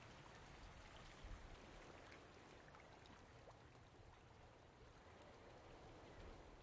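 Near silence: a faint, even hiss with a few tiny ticks.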